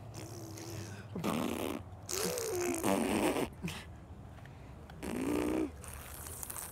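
A baby vocalizing in short bursts of babbling coos and grunts, three times, the pitch sliding up and down.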